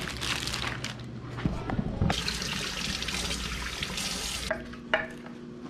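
Kitchen faucet running onto a fish being rinsed in a stainless steel sink; the water starts about two seconds in and cuts off about two and a half seconds later. Before it, a plastic zip bag rustles as the fish is handled, and a few light clicks come near the end.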